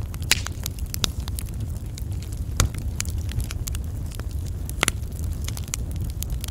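Wood fire burning, crackling with irregular sharp snaps and pops over a low, steady rumble; a few pops stand out louder than the rest.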